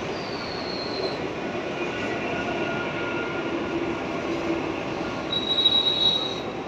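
Mumbai suburban electric local train running along the platform with a steady rumble, its wheels giving high-pitched squeals briefly after the start and again near the end.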